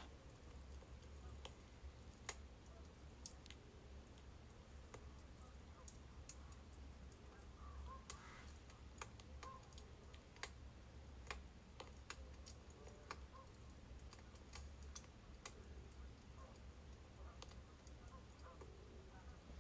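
Faint crackling of burning birch logs: sharp pops and snaps at irregular intervals over a low steady hum.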